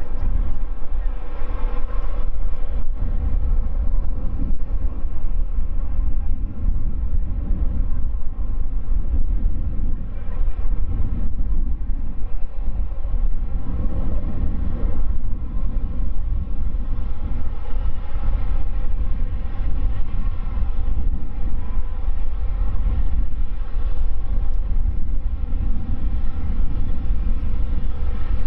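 Boeing 787-8's Rolls-Royce Trent 1000 turbofans running as the airliner rolls along the runway: a steady jet engine sound with a deep rumble and several steady whining tones.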